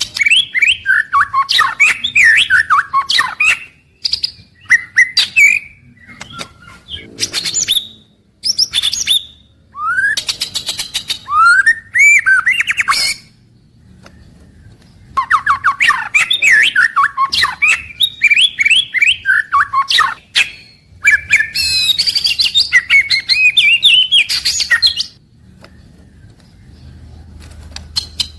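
White-rumped shama (murai batu) singing: loud phrases of rapid whistled and chattering notes, many in fast falling series, broken by short pauses of a second or two.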